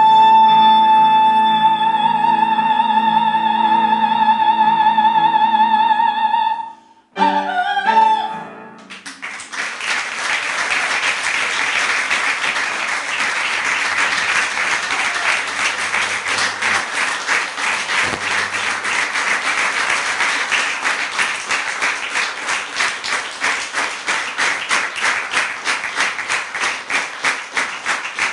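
Soprano holding a long high final note with vibrato over piano accompaniment, cutting off about six and a half seconds in, followed by a short final sung phrase. Audience applause breaks out about nine seconds in and falls into rhythmic clapping near the end.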